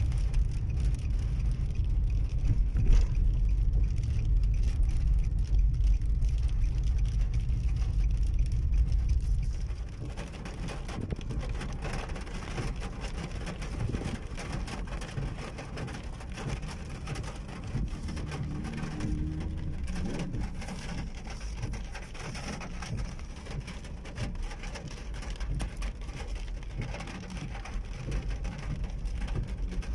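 Rain on a car's windshield, heard from inside the moving car over road and engine rumble. About a third of the way in the low rumble drops away, and the rain hitting the glass and body is left on its own.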